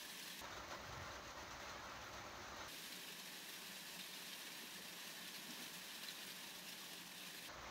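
Faint, steady hiss of heavy rain.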